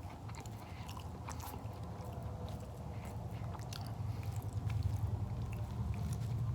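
A person biting and chewing a toasted Pop-Tart (toaster pastry), with many small crunchy clicks, over a low steady hum that grows a little louder toward the end.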